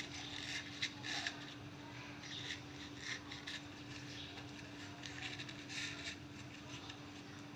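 Oiled jackfruit leaves rustling and crinkling in short, scattered strokes as they are rolled by hand into cones, over a faint steady hum.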